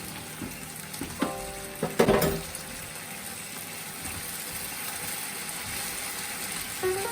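Chicken and green onions sizzling steadily in a frying pan, with a utensil knocking against the pan about a second in and again about two seconds in.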